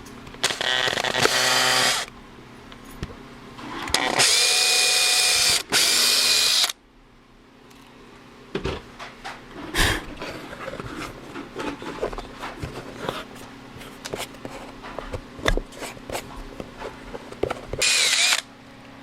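Power drill running in short bursts, three or four times, with light clicks and knocks of handling in between.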